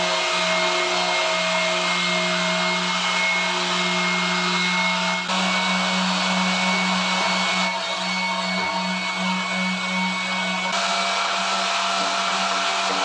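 Electric sander running steadily as it flattens dried high spots on a bathroom floor before tiling. The sound shifts abruptly about 5, 8 and 11 seconds in.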